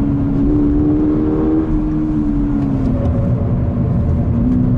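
Toyota GR86's 2.4-litre flat-four engine running under way in third gear, heard inside the cabin. The note holds steady, then falls gradually from about a second and a half in as the revs drop, and levels off.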